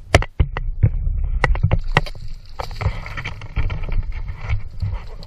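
Sharp knocks and thuds against a small fishing boat's hull, with water splashing, as a queenfish is gaffed and hauled aboard. About half a dozen separate knocks come in the first two seconds, then a busier jumble of bumps and water noise.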